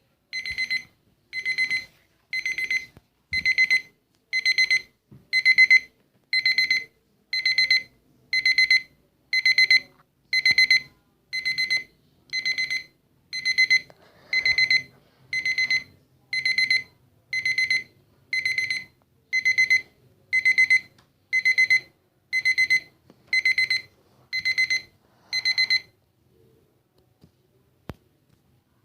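Kitchen timer alarm beeping: high-pitched bursts of rapid beeps, about one burst a second, that stop a few seconds before the end. A single faint click follows.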